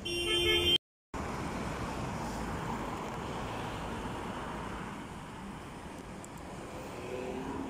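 A short pitched sound with several steady tones, the loudest thing here, cut off abruptly by a moment of total silence. After that, steady outdoor noise of wind on the microphone over river water, with traffic hum.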